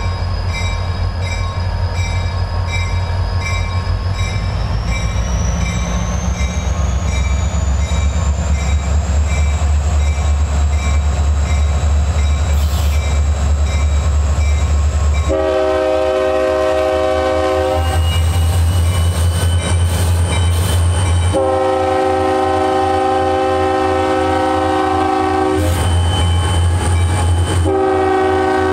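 Diesel locomotive running under power with a deep steady rumble and a high whine that rises in pitch about five seconds in. It then sounds its multi-note air horn: two long blasts and a short one, the start of the grade-crossing signal.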